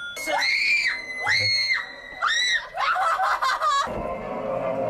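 Young women screaming in fright: three high screams in quick succession, then a shorter, wavering scream, with a low thump about four seconds in.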